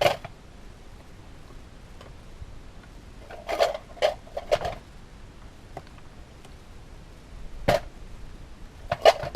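Pieces of scrap battery lead being dropped and set into a metal coffee tin, making a series of separate clunks with a short metallic ring. There is a cluster of three in the middle and a pair near the end.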